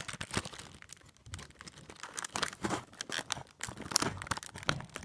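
Packaging of a fidget spinner being handled and opened by hand: irregular crinkling and tearing with scattered crackles.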